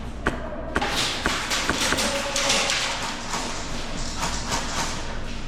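Airsoft gunfire: several sharp single cracks in the first two seconds, then a dense, steady hiss-like noise.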